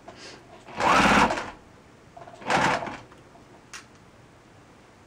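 Electric sewing machine stitching in two short bursts: the first about a second long, the second a little shorter. A single light click follows near the four-second mark.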